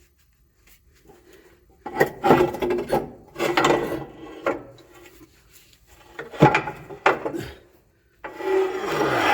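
A heavy 5 hp electric motor being shoved and slid into a lathe's motor compartment. It scrapes and knocks against the lathe's metal in about four rough, rasping bursts, each about a second long.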